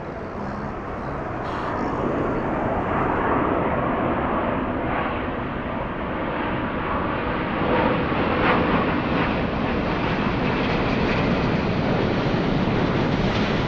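Airbus A350's Rolls-Royce Trent XWB jet engines, a dense steady roar that swells over the first two seconds and then holds loud.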